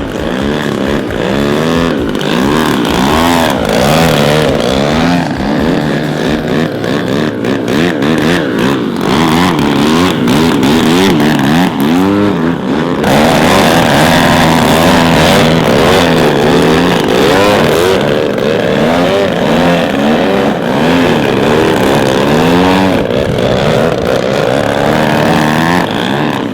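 Large radio-controlled model aerobatic plane's piston engine and propeller, the pitch repeatedly swooping up and down with throttle changes and passes, with an abrupt change about halfway through.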